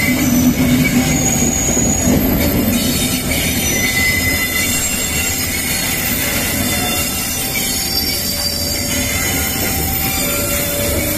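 A long train passing close by: a loud, steady rumble of wheels on rail with short high squeals and screeches from the wheels scattered throughout.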